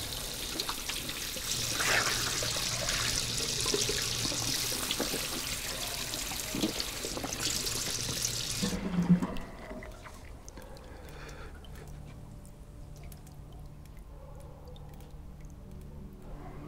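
Water running from a wall tap into a metal basin, splashing as hands wash in the stream; it stops about nine seconds in. After that only a faint low hum remains.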